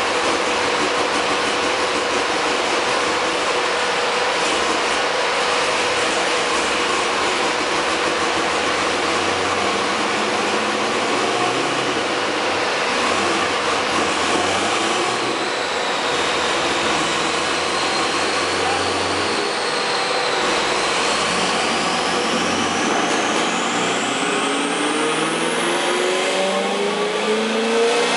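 Corvette Z06 on a chassis dyno, its wheels turning the rollers with a loud, steady noise of engine, tyres and rollers. From about two-thirds through, a high whine rises in pitch. Near the end the V8's note starts climbing as the engine revs up into a pull.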